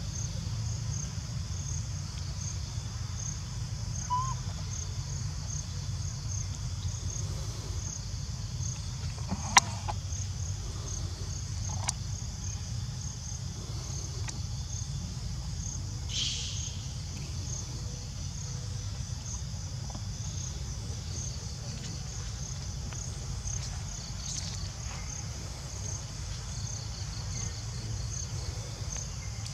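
Steady high-pitched insect chorus, pulsing evenly, over a low constant rumble. A single sharp click comes about ten seconds in.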